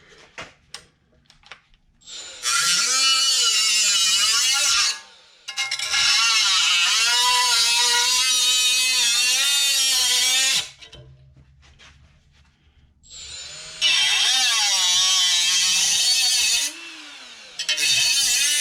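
Power cutting tool cutting through sheet-steel quarter-panel patch metal in four runs of a few seconds each, its whine dipping and rising in pitch as it bites into the metal, with short pauses between runs.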